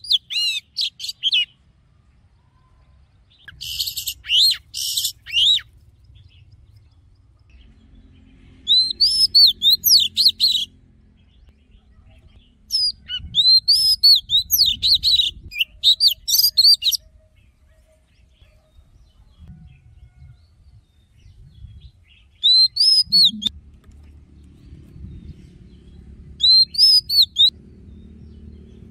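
Oriental magpie-robin singing in about six short bursts of quick, sweeping whistled phrases, a few seconds apart. A harsher, rasping stretch comes about four seconds in.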